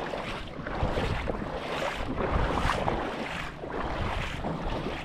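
Wind gusting on the microphone over the steady rush of fast-flowing river water.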